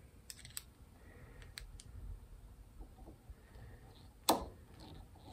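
Light clicks of a screw and screwdriver being handled and set against the old handle wood in a hatchet head's eye, with one louder, sharp click a little past four seconds in.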